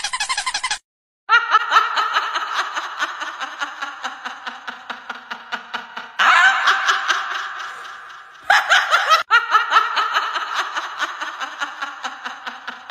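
A person laughing hard in long runs of fast, repeated bursts, loudest about halfway through and again near the end. A short squeaky sound comes just before, then a brief break.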